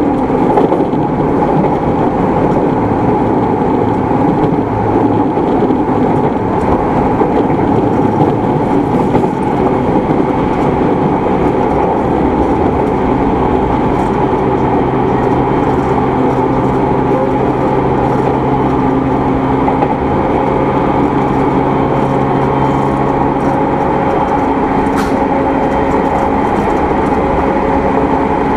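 Running noise inside the motor car of an equipment-renewed JR East E217 series electric train (MoHa E216-2000): the steady hum of the traction equipment over wheel and rail noise, with a low tone that drops away a few seconds before the end.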